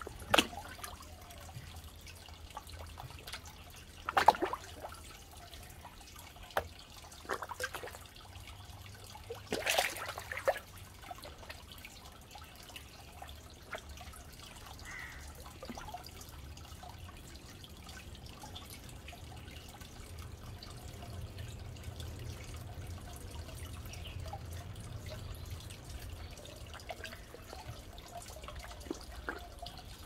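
Koi splashing and slurping at the pond surface as they feed: a few short, sharp water splashes, the loudest about 4 and 10 seconds in, with a few softer drips and laps in between.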